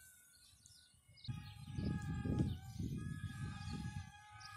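Wind gusting on the microphone, starting after about a second of near silence, with the faint steady whine of a small foam RC plane's battery-powered propeller motor overhead and a few bird chirps.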